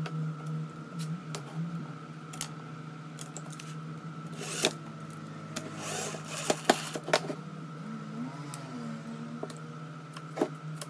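Scattered metallic clicks and light rattles of tools and small parts being handled, with a cluster of louder clicks about halfway through, over a steady low hum.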